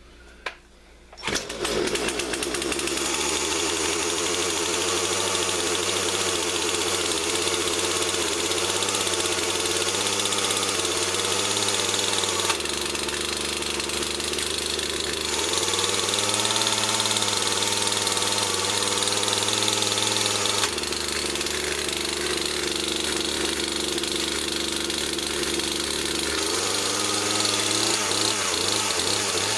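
Poulan Pro PR4218 two-stroke chainsaw engine catching about a second in on a cold start, after a short sharp sound. It keeps running with the throttle held, its speed stepping up and down every few seconds. The owner had thought it was flooded.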